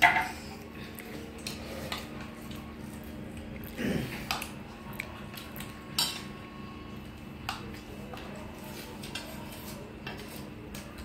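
Scattered clinks and taps of steel dishes, bowls and spoons during a shared meal, the sharpest knock at the start, over a steady low hum.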